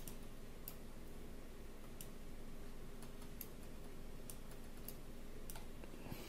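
Computer mouse clicking faintly, single clicks about a second or so apart, over a low steady background hum.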